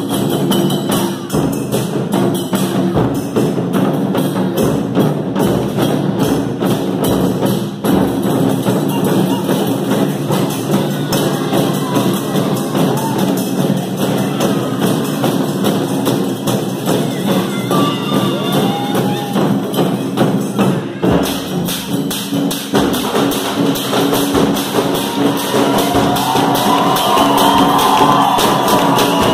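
Ensemble of taiko drums struck with sticks, playing a fast, dense, continuous rhythm.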